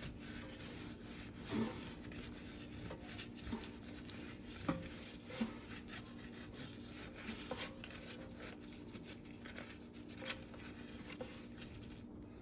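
Gloved hands rubbing seasoning into a raw pot roast: faint, irregular rubbing and handling with scattered small ticks and taps.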